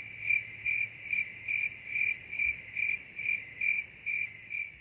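A cricket chirping at a high pitch in a steady, even rhythm of about two to three chirps a second.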